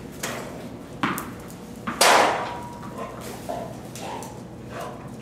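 Knocks and thumps from a dog at play on a hard floor: a couple of light knocks, then a loud sharp bang about two seconds in, followed by a brief ringing tone.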